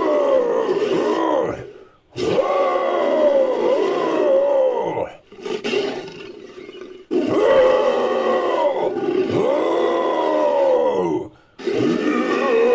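Synthetic monster roars made from layered voice and big-cat roar recordings: a series of long, loud roars of a few seconds each, their pitch bending and falling, with short gaps between; a quieter, shorter growl sits in the middle.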